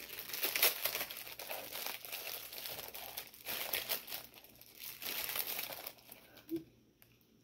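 Crinkly packaging being handled and pulled at to get a set of measuring spoons out, a dense run of crackling and rustling that stops about six seconds in.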